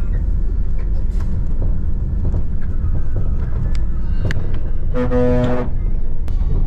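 Steady low rumble of a bus driving over a rough road, heard from inside, with scattered small knocks and rattles. About five seconds in, a loud horn sounds once, briefly.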